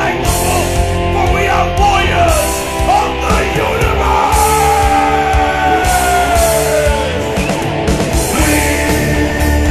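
Heavy metal song with electric guitars, drums and a man singing. In the middle, a long held note slides down in pitch.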